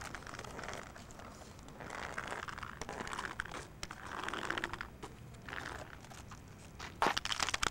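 Rustling and scraping noises of backyard street-hockey play, such as a hockey stick scuffing the ground. About seven seconds in there is a quick run of sharp knocks.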